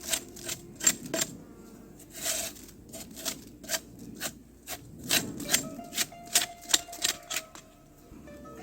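Irregular sharp cracks and knocks of sticks and bark being handled and broken, about two a second, with a few brief rustling scrapes, as the ground for a campfire is cleared and the wood prepared.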